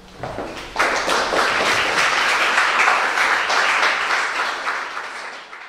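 Audience applauding, swelling to full within the first second and tapering off near the end.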